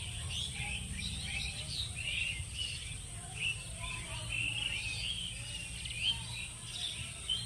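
Many small birds chirping and twittering at once, a continuous busy chorus of short overlapping calls, over a steady high-pitched whine and a low rumble.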